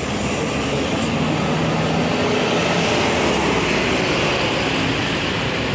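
Large tour bus driving past, its engine running steadily under heavy road and tyre noise.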